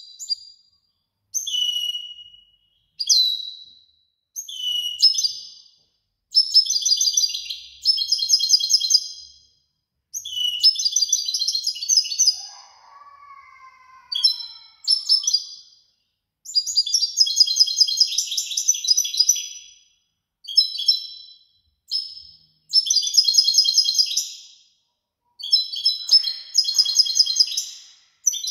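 European goldfinch singing in a cage: phrases of fast, twittering trills one to three seconds long, broken by short pauses.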